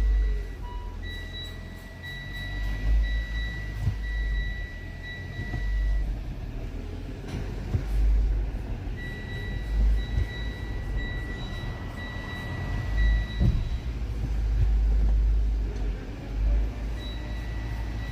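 Mitsubishi ASX running with a heavy, uneven low rumble, just after a new clutch has been fitted. A car's electronic warning chime beeps over it in runs of quick beeps that stop and start again, with a couple of single knocks.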